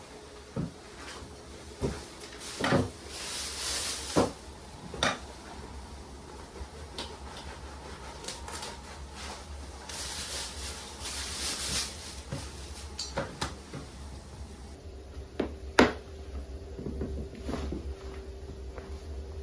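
Irregular knocks and clatter of objects being handled and set down in a small room, with a couple of short hissing rustles and a steady low rumble underneath.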